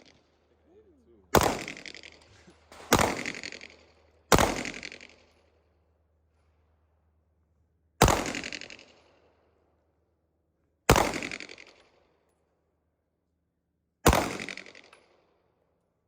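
Six gunshots from a firearm fired at a target, each with a short echoing tail. The first three come about a second and a half apart, and the last three follow with longer gaps of about three seconds.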